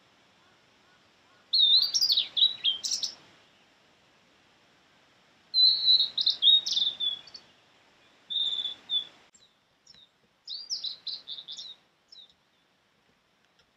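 Male blue-and-white flycatcher singing: four short phrases of varied, clear whistled notes, each lasting one to two seconds, separated by pauses, with a brief final note near the end.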